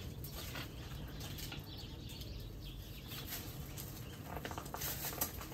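Outdoor ambience with small birds chirping, and a short run of crunching on gravel about four to five seconds in as someone stands and steps.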